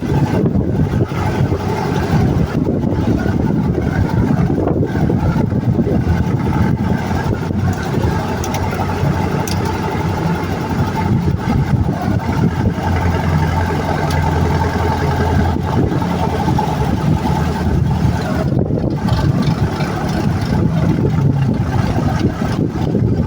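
Vehicle engine running steadily while driving off-road, its low note rising and falling a little with the throttle.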